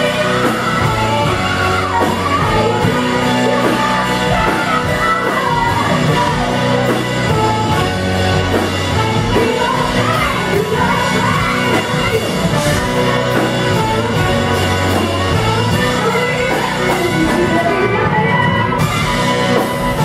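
Live rock band playing loud and unbroken, with a woman singing lead over drums, guitar, bass and horns.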